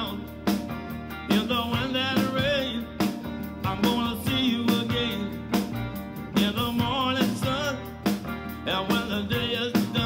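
A song with singing over a band and a beat, played back through a Teufel Rockster Go portable Bluetooth speaker as a sound test.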